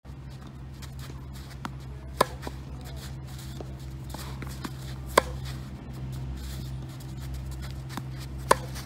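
Tennis racket striking the ball three times, about three seconds apart, each a sharp crisp pop from a forehand, with a few much fainter ticks in between over a steady low hum.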